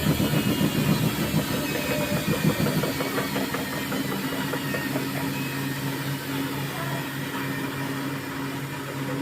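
Thomson washing machine running its wash cycle: the drum motor hums steadily, busier at first and settling into an even hum about three seconds in.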